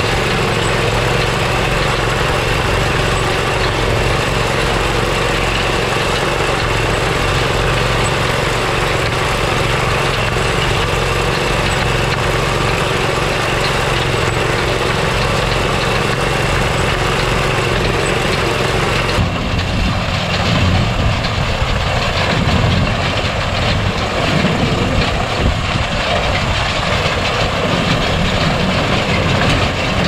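Small engine on a horse-drawn corn harvester running steadily under load. About two-thirds in, the sound turns rougher, with more low rumble and less high hiss.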